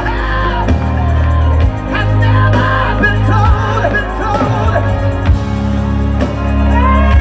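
Gospel music: a voice singing in sliding, melismatic lines over a band with a strong, steady bass line.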